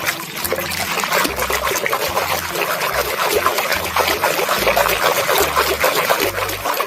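Water running and splattering over a plastic toy being rinsed clean of mud, starting suddenly.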